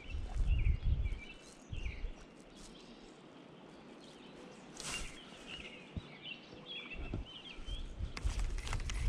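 Small birds chirping repeatedly along the river, with a low rumble of wind or handling on the microphone in the first second and again over the last two seconds.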